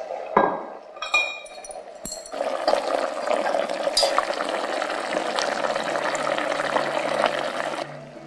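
A knock and a few ringing clinks from the lid of an enamelled cast-iron pot, then the braising sauce bubbling thickly around the beef, a dense crackle of small pops that cuts off suddenly near the end.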